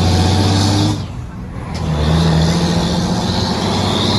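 Motor vehicle engine running with a loud low drone that eases off about a second in and picks up again, over steady road and wind noise.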